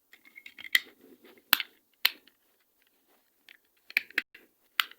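Plastic TV remote control case being pressed shut, its halves snapping together in a series of sharp clicks amid light handling and scraping of the plastic.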